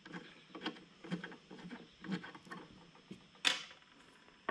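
Scattered light metal clicks and taps from handling an open-end wrench at the pump-handle pivot bolt of a Solo backpack sprayer, with one sharper click about three and a half seconds in.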